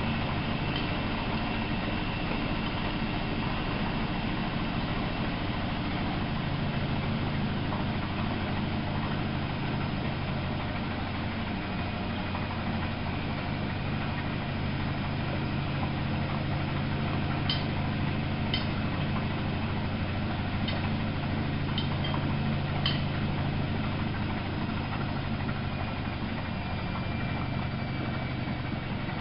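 Miele Novo Super W933 washing machine running: a steady motor hum whose pitch shifts about six seconds in, with a few faint ticks in the second half.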